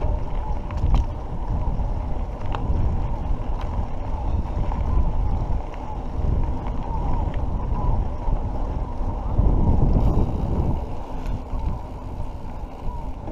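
Wind rushing over the microphone of a handlebar-mounted camera as a mountain bike rolls along a dirt road, mixed with tyre rumble and a few small rattles. The rushing swells for about a second, a little after the middle.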